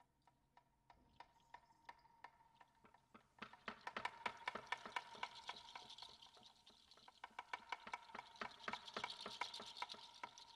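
Small bells jingling in quick, uneven clicks over a steady ringing tone, faint at first and growing louder and denser about three seconds in.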